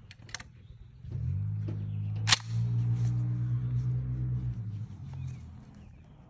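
A sharp metallic clack about two seconds in, typical of a 12-gauge semi-automatic shotgun's action closing on a chambered slug, with a lighter click just before it. A steady low drone runs for about four seconds and then fades out.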